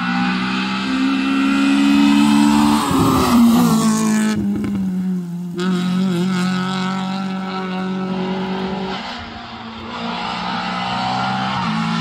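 Rally car engine under hard acceleration, its pitch stepping up and down with gear changes.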